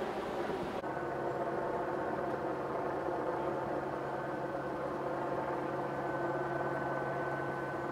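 Parked police car's engine idling with a steady low hum, a thin high whine joining about six seconds in.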